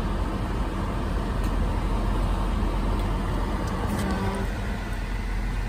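Steady low hum and hiss inside a Toyota 4Runner's cabin with the vehicle running.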